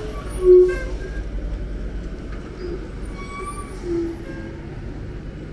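Loaded lorry's engine running with a steady low rumble as it moves through a hairpin bend. Two short pitched sounds cut through it, a loud one about half a second in and a softer one about four seconds in.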